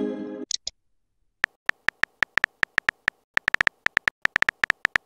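Virtual smartphone keyboard tap sounds: short sharp clicks in quick, irregular runs, starting about a second and a half in as a message is typed. At the very start the tail of a pitched message-alert chime dies away, followed by two brief high blips.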